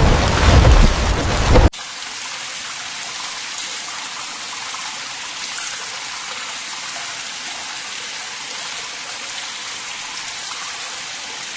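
Heavy rain with a deep thunder rumble that cuts off suddenly after about a second and a half, giving way to steady rain hiss.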